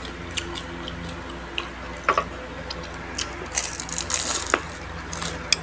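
Eating sounds at a table: scattered small clicks and smacks of chewing, with a short scratchy crunch about three and a half seconds in, over a steady low hum.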